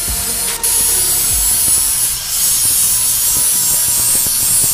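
Handheld electric angle grinder grinding paint and dirt off a truck's rear axle housing down to bare metal: a steady hissing grind over a thin, even motor whine, with a brief drop about half a second in.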